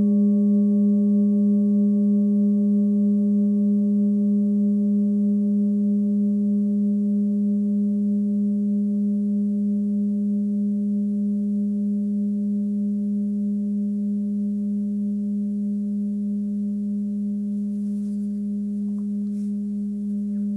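Forged Sun Moon singing bowl, 18 cm, tuned to about 205 Hz (G#), ringing on after being played: a steady low hum with a set of higher overtones, slowly fading with a gentle wavering. A few faint handling clicks near the end.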